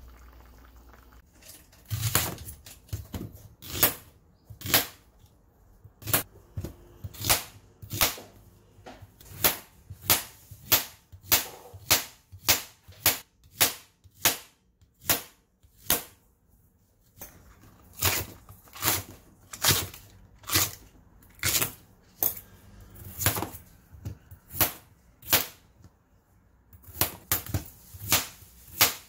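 A kitchen knife chopping vegetables on a metal cutting board, each cut ending in a sharp click of blade on board. The cuts come about one to two a second, with a short pause midway.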